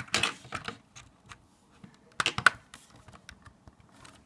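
Lego plastic parts of a brick-built truck clicking and clattering as they are handled. There is a flurry of quick clicks at the start and another a little after two seconds in, with a few scattered clicks between.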